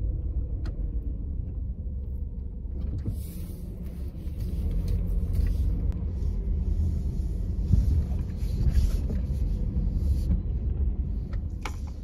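A car driving slowly, with a steady low engine and road rumble heard from inside the cabin. The rumble and tyre hiss grow louder about four seconds in.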